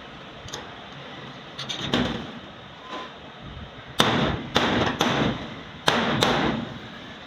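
Hammer blows on sheet steel: a few lighter knocks, then five loud strikes in the second half, each with a short ring.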